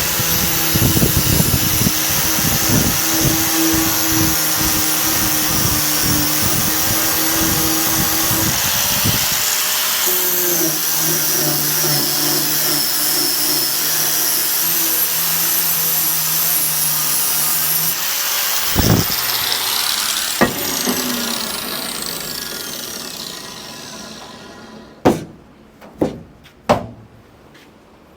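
Handheld electric power tool sanding paint and body filler off a steel car door, running steadily under load with its motor pitch shifting about ten seconds in. Near the end it is switched off and spins down over several seconds, followed by three sharp knocks.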